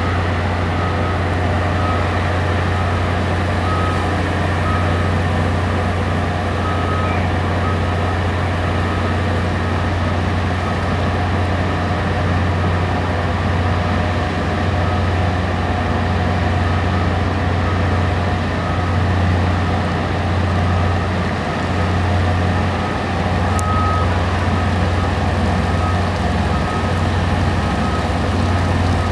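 Tugboat diesel engines running with a steady low drone, and a faint high beep repeating intermittently in the background.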